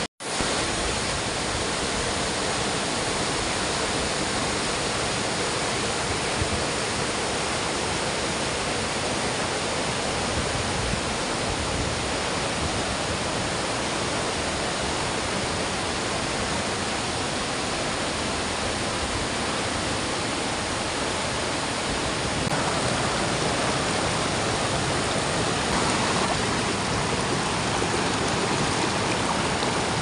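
Stream water rushing steadily over rock ledges and small waterfall cascades, a continuous dense hiss of falling and tumbling water, a little louder in the last several seconds. It cuts out for a split second at the very start.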